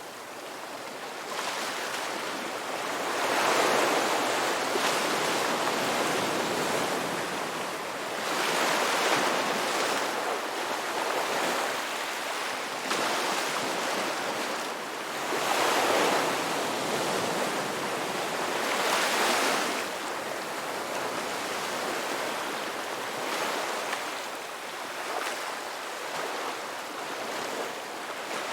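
Ocean waves breaking and washing ashore in a steady rush, swelling into louder surges every few seconds.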